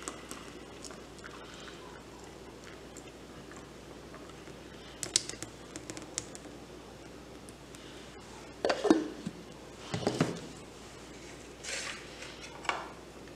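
Thick milkshake poured from a steel mixer jar into a glass over crushed ice: a quiet pour with a run of small clicks about halfway through, then a few short knocks and bumps near the end.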